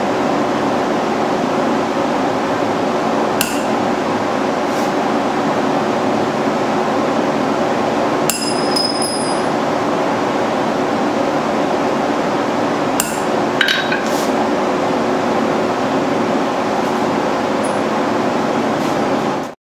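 Occasional single hammer strikes on steel at the anvil, spaced a few seconds apart, several followed by a short bright ring. They sound over a steady rushing noise with a faint low hum.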